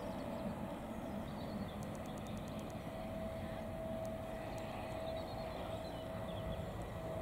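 Twin GE90 turbofan engines of a Boeing 777-300ER running at a distance as the airliner rolls on the runway: a steady jet rumble with a thin, even whine on top.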